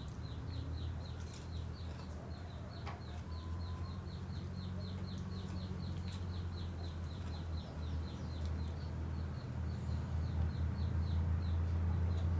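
A bird cheeping in a steady run of short, falling high notes, about three or four a second, that stops shortly before the end, over a steady low hum with a few faint clicks.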